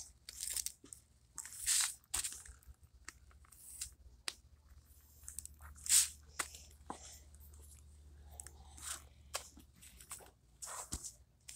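A sheet of paper being crumpled and torn by hand: irregular crackly crunches and rustles, coming in short uneven bursts with quiet gaps between them.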